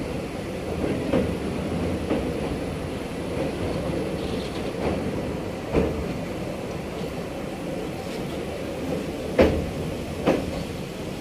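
Passenger train running slowly on the rails: a steady rumble broken by a few sharp clanks from the wheels and couplings, the loudest about nine seconds in, with another a second later.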